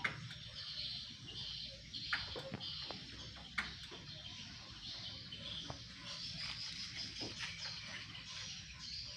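Faint outdoor ambience of birds chirping and insects calling, with a couple of sharp knocks about two and three and a half seconds in.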